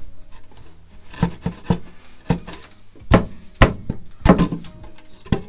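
Wooden cabin floor panels in a boat knocking and thudding as they are handled and shifted, about nine sharp irregular knocks.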